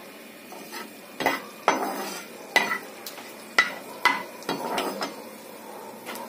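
A spoon stirring and knocking against the pot in a series of sharp, irregular scrapes and clinks, over a faint sizzle of whole spices and dried red chillies frying in hot oil for a tadka.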